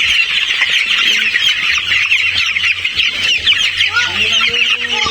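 A crowded flock of young broiler chickens peeping continuously, many short high chirps overlapping, with a few longer, lower calls mixed in, the clearest about four seconds in.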